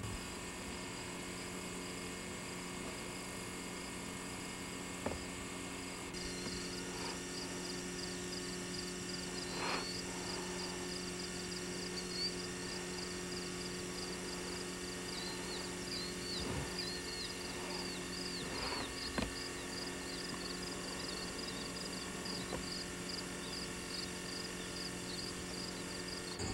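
Insects chirping in a quick, even rhythm, starting about six seconds in, over a steady low electrical hum, with a few faint knocks.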